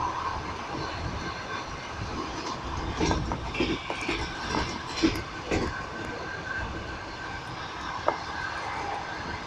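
Passenger train running, heard from inside the carriage: a steady rumble of the wheels on the rails, with a cluster of sharp clacks over the rail joints a few seconds in and one more clack near the end.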